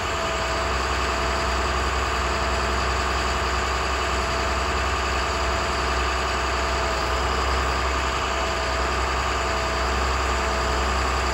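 A MaxxForce DT turbo-diesel in an International 7300 work truck idling steadily: an even low rumble with a faint steady whine above it.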